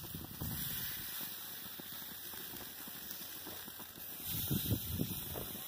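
Marinated tenderloin short ribs sizzling on a hot grill set on high for searing. Wind rumbles on the microphone, growing gustier about four seconds in.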